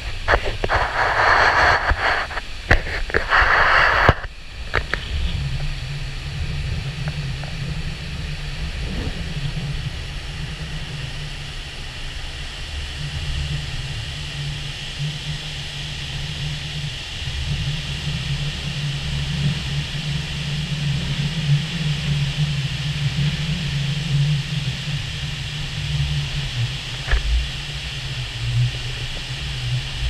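Wind buffeting the microphone for about the first four seconds, then, after a sudden change, the steady rushing of the Dettifoss waterfall: a deep rumble under a hiss of falling water and spray.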